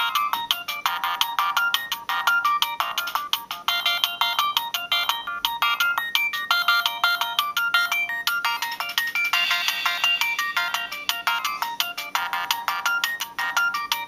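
Siemens C65 mobile phone ringtone: a fast run of short, bright electronic notes, several sounding at once.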